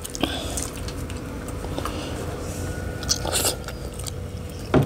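Close-miked eating sounds: chewing and biting on food, with scattered small clicks and a sharp knock near the end.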